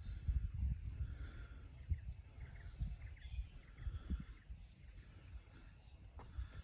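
Wind buffeting the microphone in irregular low rumbling gusts, with faint bird chirps in the first few seconds.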